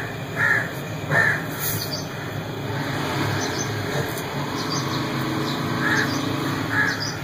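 A bird calling, with two short calls in the first second or so and two more near the end.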